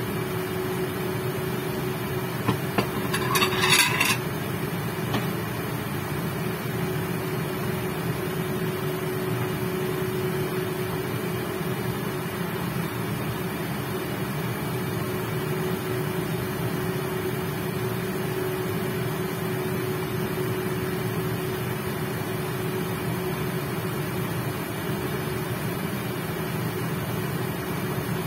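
Portable induction cooker running under a lidded wok of simmering chicken: a steady electrical hum with one held tone over the whir of its cooling fan. About three seconds in there is a short burst of clicks and hiss from the pan.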